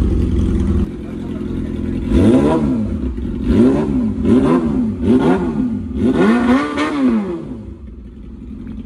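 2014 Yamaha YZF-R6's 599 cc inline-four running loud through a Race Fit full-system exhaust. A held rev drops back about a second in, then the engine is blipped about five times, each rise and fall in pitch quick and sharp, before it settles back to idle.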